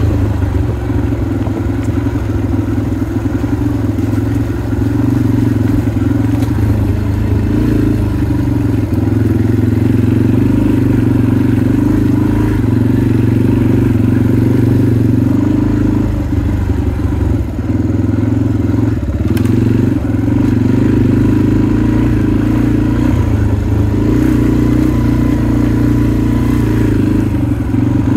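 Motorcycle engine running steadily while riding a dirt trail, its note dipping briefly a few times in the middle before picking up again.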